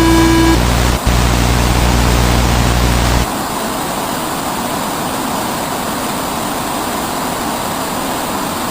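Electronic noise from a mock emergency-alert broadcast: a steady buzzy tone cuts off about half a second in, a low hum carries on, dropping out briefly about a second in and stopping about three seconds in, all over loud steady static hiss that continues alone afterwards.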